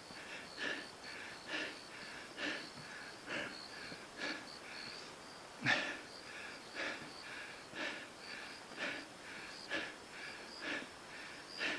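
A hiker's heavy breathing while climbing steep trail steps, a breath roughly every second, from the strain of the climb.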